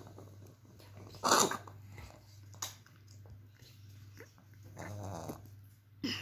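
Boston terrier puppy grumbling and giving a loud noisy huff about a second in while its claws are clipped. Sharp clicks come from the nail clipper a couple of times.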